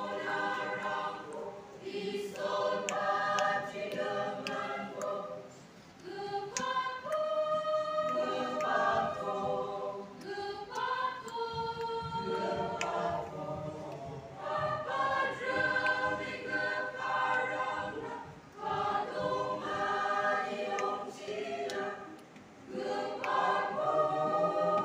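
Mixed church choir of women's and men's voices singing in harmony, in phrases separated by short breaths.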